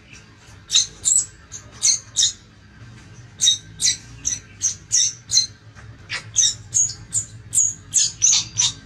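Infant macaque crying in short, high-pitched squeals, about two to three a second, in bunches broken by brief pauses and coming thick and fast near the end.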